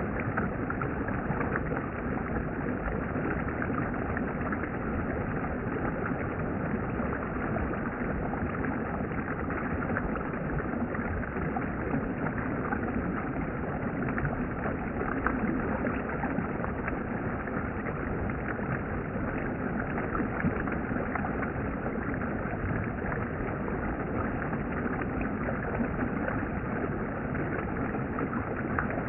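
Steady rushing of a flowing valley stream, an even wash of water noise that doesn't let up.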